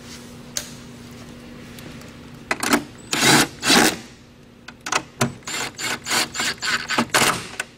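Socket ratchet working a battery tie-down's 10mm nuts in short clicking strokes: a few heavier strokes, then a quick run of about four strokes a second near the end.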